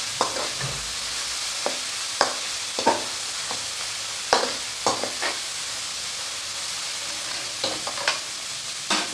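Sliced onions sizzling in hot oil in a kadai while a steel spoon stirs them, clinking and scraping against the pan at irregular intervals, with a stretch of only sizzling about two-thirds of the way through.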